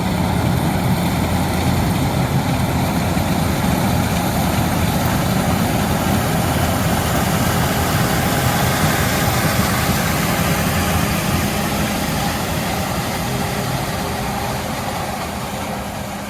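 Fendt Ideal 9T combine running steadily while harvesting corn: a dense, even drone of engine and threshing machinery with a low hum. It fades out gradually over the last few seconds.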